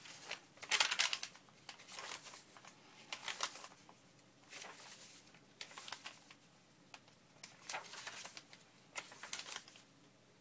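Sheets of paper and cardstock being handled and shuffled, rustling and sliding against each other in a series of short bursts.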